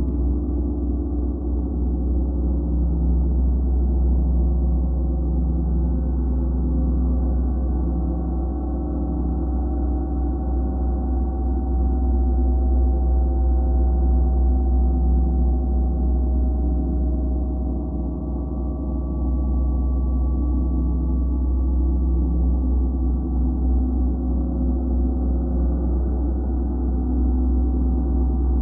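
Gongs played continuously in a gong bath: a dense, unbroken wash of deep, sustained ringing tones with a slow pulsing shimmer. The sound eases slightly about two-thirds of the way through, then swells again.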